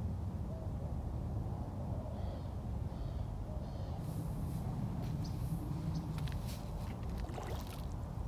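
Steady low outdoor rumble with a few faint chirping bird calls about two to three seconds in, then scattered light clicks and rustles as a person gets up from a folding camp chair.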